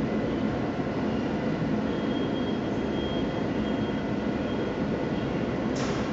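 A steady low rumble of machinery or traffic, with a faint thin whine in the middle and a short hiss near the end.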